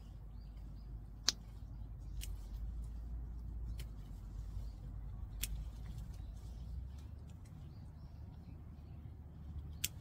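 Hand pruning shears snipping the top shoots off chili pepper plants: a handful of sharp clicks spaced one to a few seconds apart, the loudest about a second in, over a low steady rumble.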